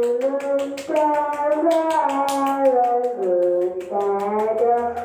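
Music: a melody of long held notes that slide from one pitch to the next, over a fast, steady ticking beat.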